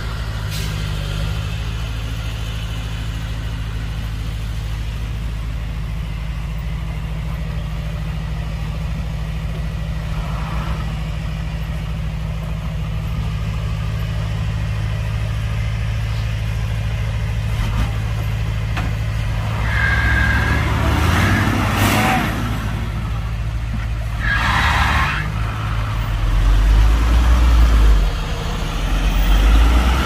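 Heavy diesel engine of a construction truck or machine running steadily, with a few short hissing sounds between about twenty and twenty-five seconds in. The engine grows louder near the end.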